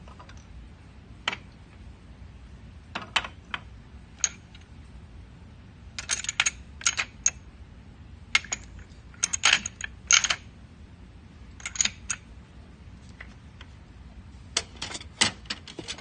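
Light clicks and clacks of small hard objects, single and in quick irregular clusters, with a low steady hum underneath.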